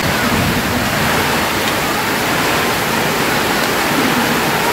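Steady, loud rushing noise with no rhythm or change.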